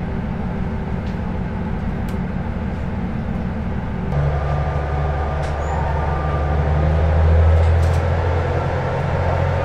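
KiHa 40 series diesel railcar's engine idling with a steady low rumble, then about four seconds in it throttles up into a louder, deeper drone that swells and eases slightly as the train sets off from the station.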